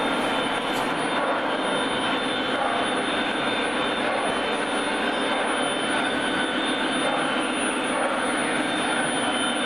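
Lionel model train running on the layout track: a steady rolling rumble of metal wheels on rail mixed with electric motor hum, holding at an even level.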